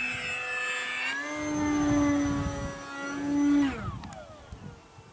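Electric motor and propeller of a 1700 mm foam PA-18 Super Cub RC plane whining in flight. The pitch steps up a little about a second in, holds, then falls away steeply near the end as the power comes off.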